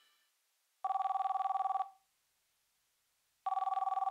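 Electronic telephone ringing: two warbling rings of about a second each, the first just under a second in and the second about three and a half seconds in.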